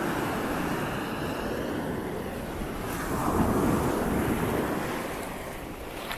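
Small ocean waves washing up the sand and swirling foam around bare feet, one surge building about three seconds in and then draining away.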